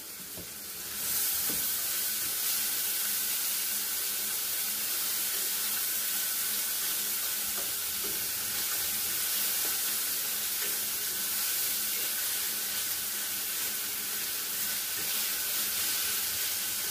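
Ground beef sizzling as it browns in a skillet, stirred with a utensil now and then. The sizzle grows louder about a second in and then holds steady.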